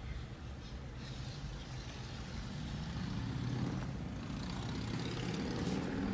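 A vehicle engine idling: a steady low rumble that grows louder about halfway through.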